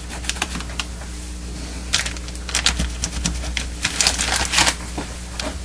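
Plastic tarp crinkling and rustling as hands smooth it and set a yardstick on it, in irregular bursts of clicks that thicken about two seconds in, over a steady low hum.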